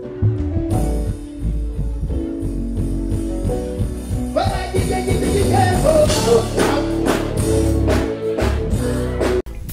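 Live stage-show music through a sound system, with a strong bass line; a man's voice sings over it from about halfway in. The music cuts off abruptly just before the end.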